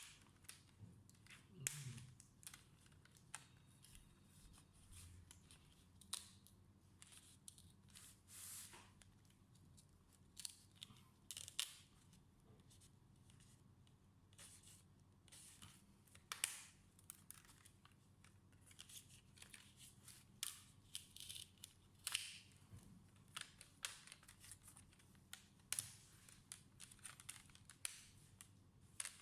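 Faint, intermittent scratching and small clicks from hand tools working on the parts of a water-damaged Acer Swift SF114-34 laptop. The short scrapes come every second or two throughout.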